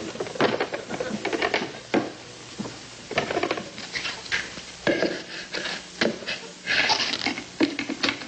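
Pots, pans and utensils clattering in a kitchen: a run of irregular knocks and clanks, with a brighter clatter about seven seconds in.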